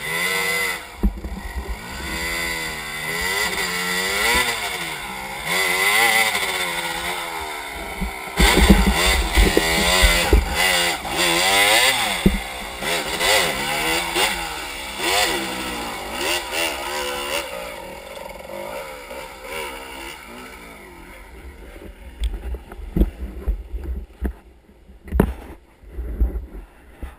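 Off-road motorcycle engine revving hard on a steep hill climb, its pitch rising and falling over and over as the throttle is worked. It fades away in the last third, with a few sharp knocks near the end.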